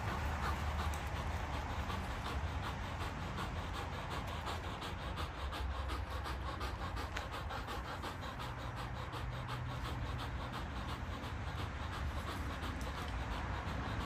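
Belgian Malinois dogs panting in quick, even breaths while hanging on and tugging a rope toy.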